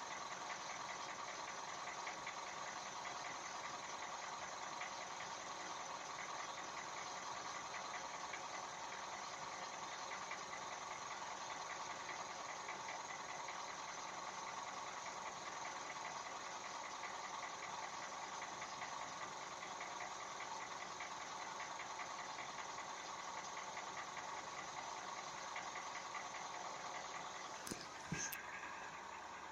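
Toyota 1NZ 1.5-litre four-cylinder engine running steadily with a fast, even knock or tapping from inside the engine. The knock is the fault the engine is being recorded for. A few sharp clicks near the end.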